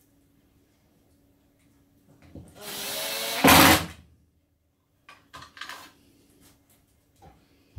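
Cordless drill-driver driving a screw into board: one run of about a second and a half with the motor pitch rising, louder near the end as the screw goes home. A few light clicks and knocks follow.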